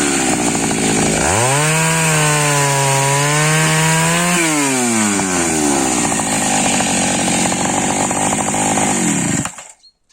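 Taiga 214 two-stroke chainsaw engine: it drops in speed, is revved up about a second in and held at high revs for about three seconds, then falls back to a lower speed before cutting off abruptly near the end.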